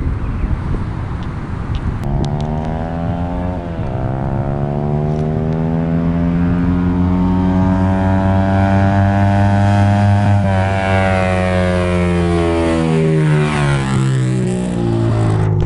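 Yamaha YBR 125's single-cylinder four-stroke engine through a Roncar Aluminium RS aftermarket exhaust, running hard. Its note climbs slowly in pitch with a brief dip about four seconds in, holds high, then falls over the last few seconds as it slows or passes by.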